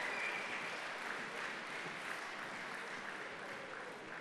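Audience applauding, a steady spread of clapping.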